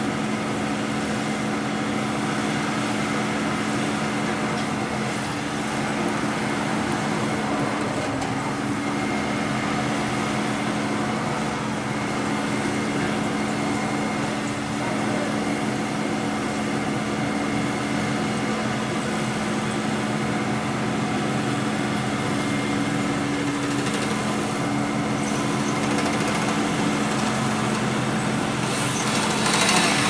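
Bucket truck's engine running steadily to power the boom, a constant droning hum with street traffic, and a vehicle passing near the end.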